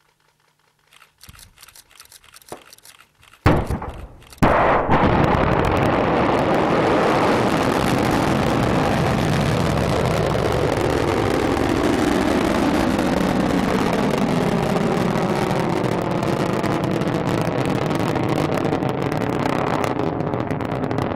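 Silo launch of a Dnepr rocket, a converted SS-18 ICBM: after a few faint crackles, a sharp bang as the rocket is ejected from its silo, then about a second later its first-stage engines ignite and run in a loud, continuous roar, the tone slowly falling as it climbs away.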